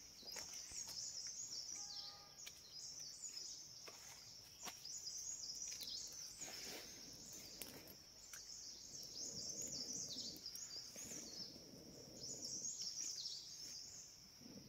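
Quiet outdoor ambience of birds chirping continuously and high-pitched, with a few faint clicks and soft rustles underneath.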